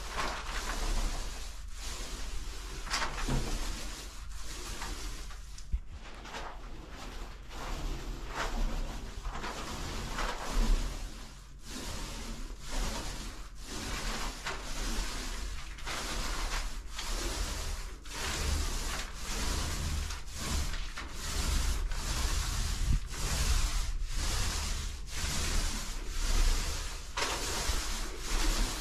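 Paint roller on an extension pole rolling PVA primer onto a newly textured ceiling, with a repeated rubbing swish as it is pushed back and forth in steady strokes.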